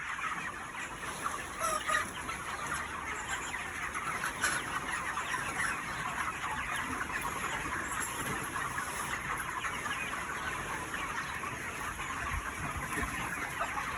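A large flock of chickens clucking and chirping together in a dense, steady chatter, with a few louder calls standing out now and then.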